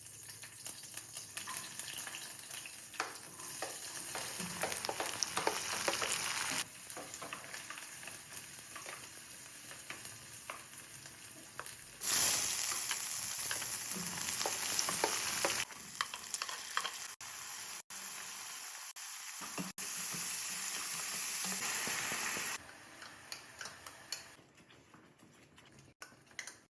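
Chicken tikka masala frying and sizzling in a hot pan while being stirred, with small scraping clicks. It comes in several short clips that start and stop abruptly, and the sizzle dies down near the end.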